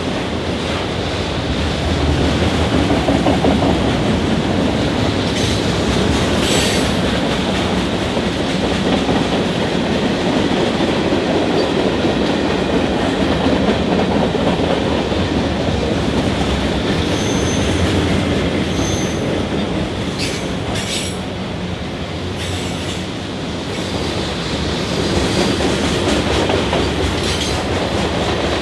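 A train rolling past on the rails: a steady rumble of wheels, with a few sharp clicks over rail joints and two short, high wheel squeals a little past halfway through.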